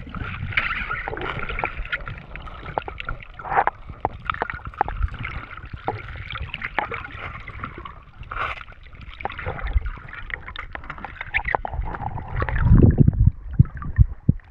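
Water heard underwater through a camera housing: a steady watery hiss with gurgling and many sharp clicks and crackles. Near the end a loud, low rush of water as the camera comes up through the surface.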